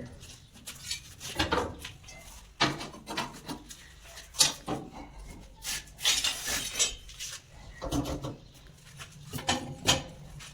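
Steel reinforcing bars being laid out for a concrete slab, metal clinking and knocking against metal in irregular strikes.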